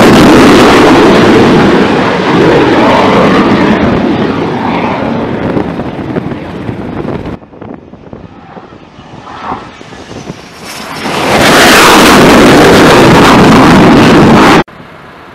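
T-45 Goshawk jet trainer's turbofan running at full power as it launches off a carrier deck, loud at first and fading away as it climbs out. After a cut, jet noise swells back to full loudness a few seconds later and then cuts off suddenly.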